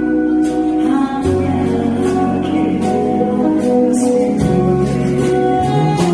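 Music with a steady drum beat, a bass line and held melody notes.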